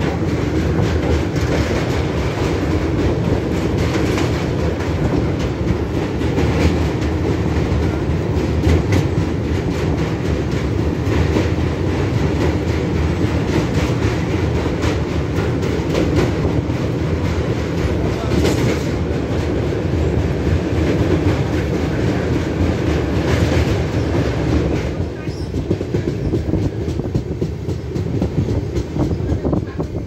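Passenger train running over a steel girder bridge, heard from inside the coach by the window: a steady, loud rumble with wheels clacking over the rails. About twenty-five seconds in the sound drops and gets lighter as the train comes off the bridge onto solid ground.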